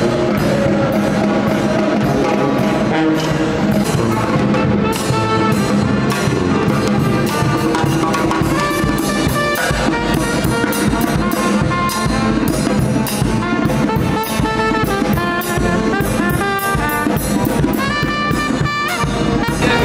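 Live brass band playing: saxophone and sousaphone lines over a snare drum keeping a steady beat.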